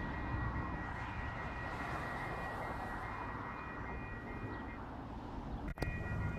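Railroad crossing signal's electronic bell ringing steadily over road traffic noise as the crossing gates rise after a train; the bell stops about five seconds in.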